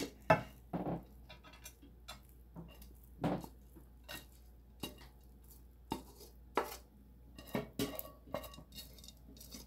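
A pan and a plastic spatula knocking and scraping as sticky Rice Krispie treat mixture is scooped out of the pan into a ceramic baking dish: irregular clicks and knocks, a dozen or so, spaced unevenly.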